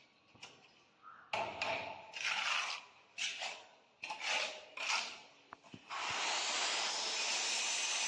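Steel mason's trowel scraping and working cement mortar in a run of short, irregular strokes, with a couple of light clicks. About six seconds in, a loud, steady hiss starts abruptly and holds.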